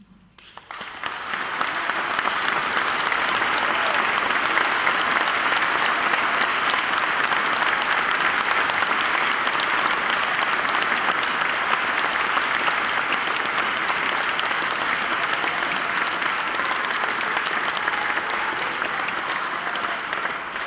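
Congregation applauding, building up over the first second or two and then holding steady.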